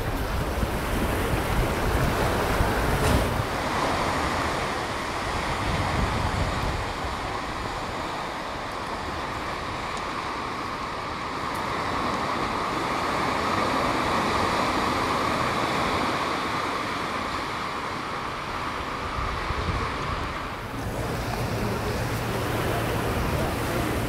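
Sea surf washing on the shore, with wind buffeting the microphone.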